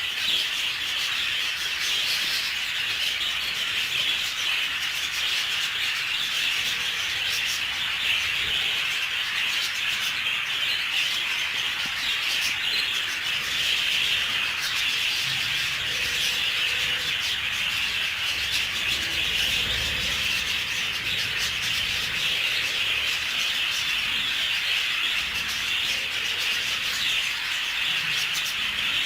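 A flock of budgerigars chattering and warbling continuously, many birds at once in a dense, unbroken chirping.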